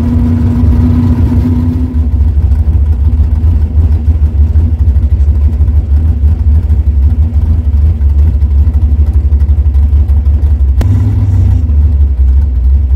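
Small-block Chevy V8 of a drag-race Camaro heard from inside the cabin, running at low speed with a steady low rumble. A single sharp click sounds about eleven seconds in.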